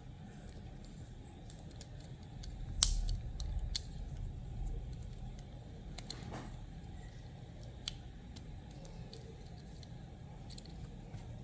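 Small clicks and taps of plastic and metal toy-car parts being handled as rubber tires are fitted onto a die-cast model car; a sharp click about three seconds in is the loudest, with a few more near the middle.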